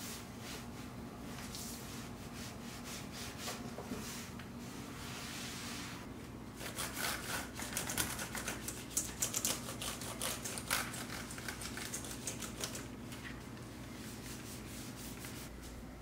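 A cloth or wipe rubbing in repeated strokes, then a computer keyboard's keys clicking and rattling as it is wiped down, loudest around the middle.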